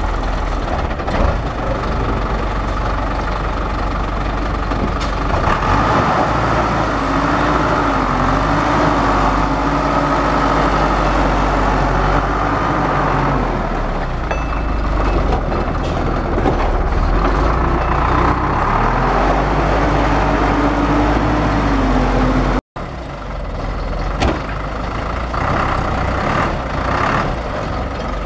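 Heavy diesel machinery running steadily, a dump truck's engine with a mini wheeled excavator at work. A whine wavers up and down through two long stretches over the low engine rumble, and the sound breaks off for an instant about 23 seconds in.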